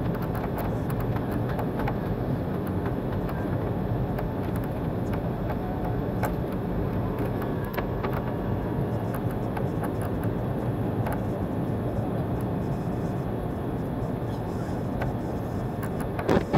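Steady cabin noise inside a Boeing 757-200 on approach, the engines and rushing air over the wing and extended flaps, with a few faint rattles and a short knock near the end.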